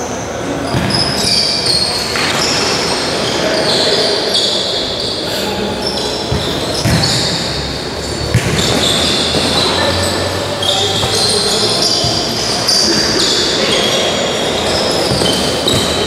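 A futsal match in an echoing sports hall: the ball is kicked and bounces on the court with several sharp knocks, the sharpest about halfway through. Players' shoes squeak high on the floor, with voices calling out underneath.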